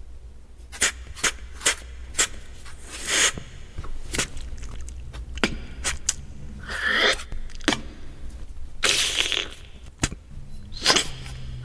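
Beatboxer's mouth sound effects imitating guacamole being made: a run of sharp clicks, longer hissing scrapes, and a short gliding pitched squeak about seven seconds in.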